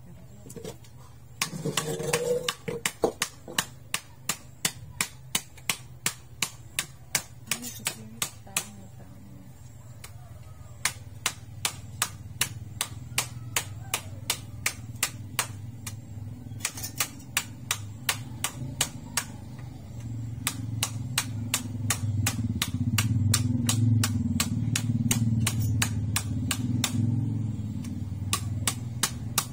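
A knife chopping fish on a wooden board: steady, evenly spaced blows, two or three a second, with a short pause about a third of the way in. A low background rumble swells underneath in the latter part.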